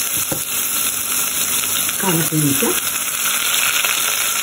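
Chopped red onions frying in oil in a stainless-steel saucepan: a steady sizzling hiss.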